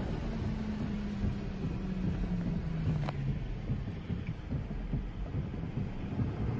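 Rumble of a car and gusty storm wind heard from inside the cabin. A low tone slides down in pitch over the first three seconds, and there is one sharp click about three seconds in.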